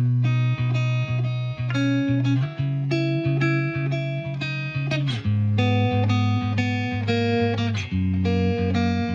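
Background music led by guitar, plucked notes and short melodic phrases with slides between notes.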